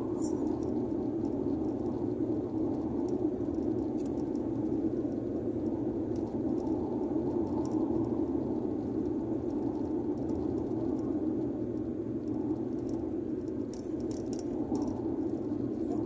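Steady road and engine noise inside a Hyundai Getz hatchback's cabin while driving, an even low hum with a few faint clicks.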